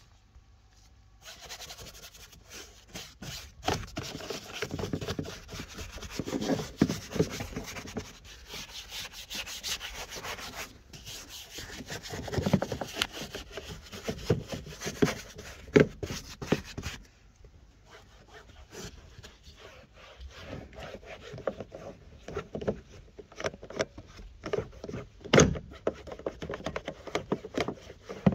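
Stiff hand brush scrubbing the foam-covered B-pillar trim and seatbelt of a car interior in quick back-and-forth scratchy strokes. About 17 seconds in it gives way to softer rubbing as a microfiber towel wipes the pillar.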